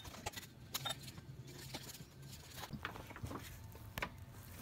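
Faint, irregular clicks and knocks of a hand wrench working loose the water pump bolts on an engine block, over a low steady hum.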